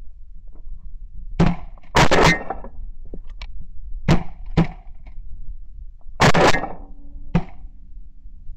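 Shotguns fired at geese flying overhead: a volley of about seven sharp shots spread over several seconds, the two loudest about two seconds and about six seconds in, with fainter shots between them.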